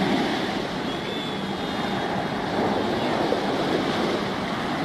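Steady wind rushing over the microphone, mixed with choppy harbour water and a faint low engine hum.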